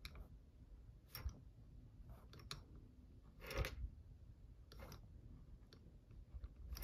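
Faint, widely spaced taps and clicks of a pen on a paper planner page, about one a second, the loudest near the end.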